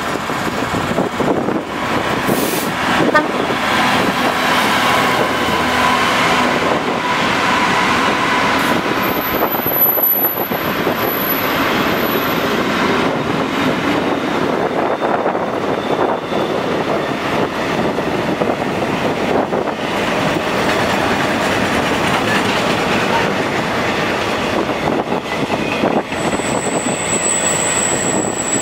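A diesel freight train hauled by a Class 66 locomotive runs through at speed. The long string of steel-coil and flat wagons gives a steady rumble and clatter over the rails, with a thin high wheel squeal briefly twice.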